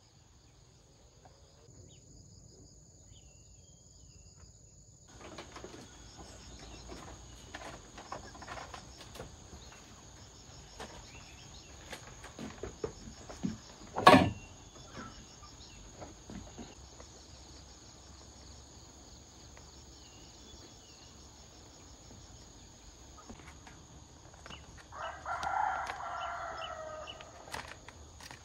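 A rooster crows once near the end, a pitched call lasting about two seconds. Scattered knocks and clicks run through the middle, with one loud sharp knock about halfway through, over a steady high whine.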